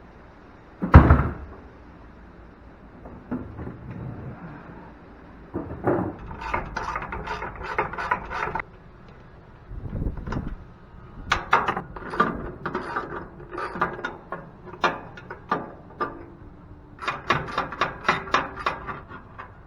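Ratchet wrench clicking in several short runs, about four clicks a second, as fasteners are worked loose on scrap machinery. There is a single loud knock about a second in.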